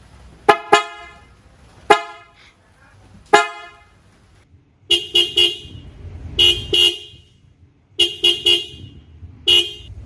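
Car horns sounded in short blasts. First comes a deep, rich horn, the newly fitted PIAA Superior Bass Horn, honked four times in the first three and a half seconds. From about five seconds the Mitsubishi Pajero Sport's original horn follows, brighter in tone, in quick groups of short toots.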